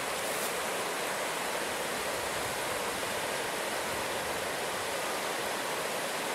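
River in flood, its brown floodwater rushing and churning in a steady, even rush with no breaks.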